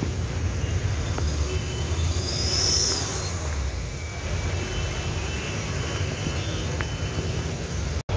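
Vehicles driving through floodwater on a road, giving a steady rush of tyres in water and traffic with a heavy low rumble. A louder hiss of spray comes about two and a half seconds in, and the sound cuts off abruptly near the end.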